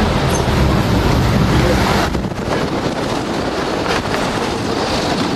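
Steady rushing noise of wind on the microphone, heavier and lower for the first two seconds, then easing.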